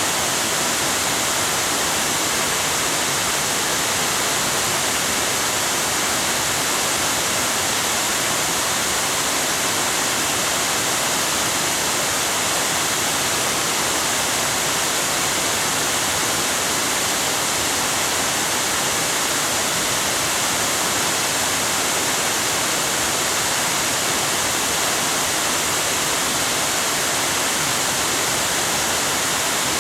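A waterfall about 50 feet high, water falling in a steady, unbroken rush that is strongest in the hiss, with no change in level.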